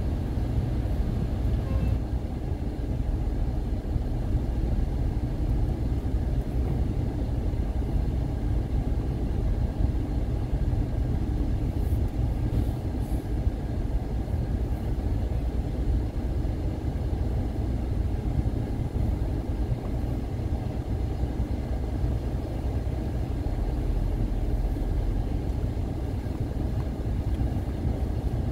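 Steady low rumble of a car driving, its engine and tyre noise heard from inside the cabin.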